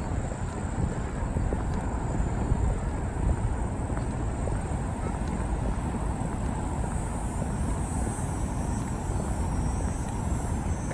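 Steady low rumble of wind buffeting a chest-mounted camera's microphone, with a faint high hiss above it.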